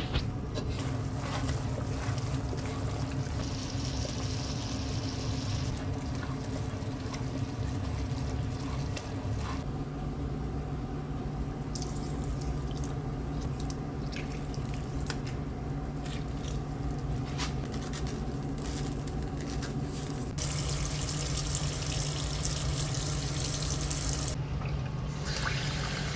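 Liquid sloshing and trickling as groundnut paste is stirred and mashed in hot water in a pot, with small knocks of the utensil and a steady low hum underneath.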